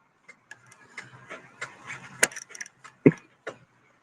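Scattered light clicks and taps, with a sharper click a little past two seconds in and a dull thump about three seconds in.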